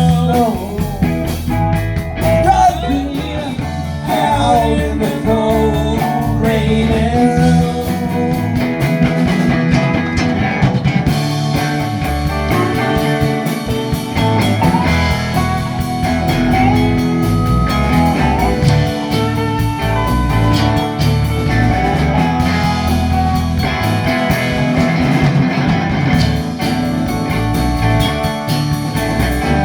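Rock band music: an electric guitar playing a wandering lead line over bass and rhythm.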